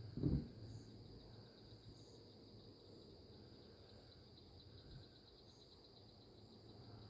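Steady high-pitched chirring of crickets, with one dull low thump about a third of a second in.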